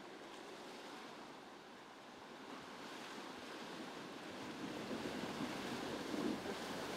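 Water surging and splashing around the wheels and front of a Land Rover Freelander 2 as it fords a shallow stream, a steady rushing that grows louder as the vehicle comes closer.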